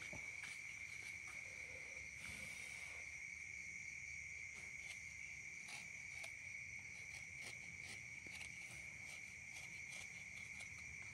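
A steady, unbroken high cricket trill, faint, with a few soft clicks and scrapes from hand work on a knife handle.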